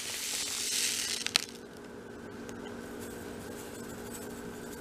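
Rustling and crinkling of chia seeds being scooped with a metal spoon from their package, ending in a click about a second and a half in. After that, a steady low hum.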